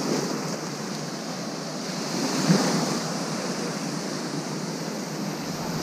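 Small waves breaking and washing up over shallow water onto a sandy beach, swelling briefly about halfway through.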